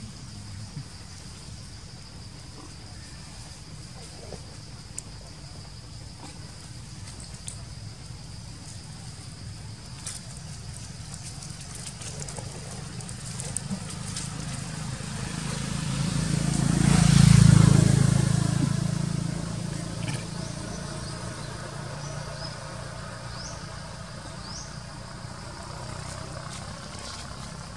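A motor vehicle passes on the road, its engine and tyre noise building over several seconds to a peak a little past the middle and then fading away. A steady high insect buzz runs underneath.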